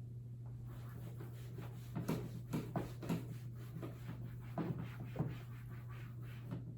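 Hand-writing strokes and taps, in two short clusters a couple of seconds in and again near the middle, over a steady low electrical hum.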